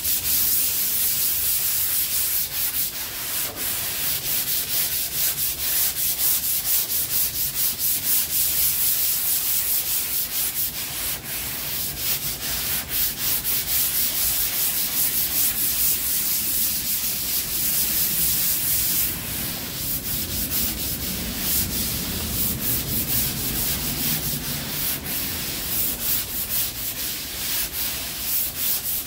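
Sandpaper on a hand sanding block rubbing back and forth over cured body filler (Bondo) on a car's quarter panel, in quick, steady strokes.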